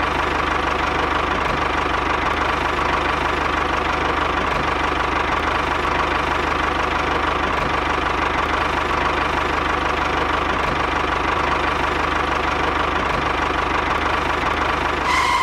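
A tractor engine running steadily at an even level, cutting off abruptly at the end.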